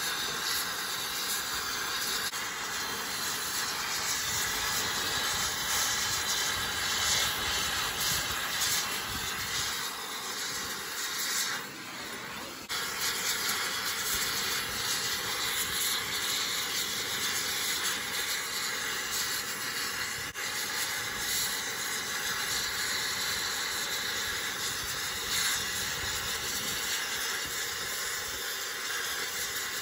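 Oxy-fuel cutting torch with a gouging tip hissing steadily as it cuts a deep groove into a cone crusher's steel mantle liner just below the mantle nut. The sound turns briefly softer about twelve seconds in.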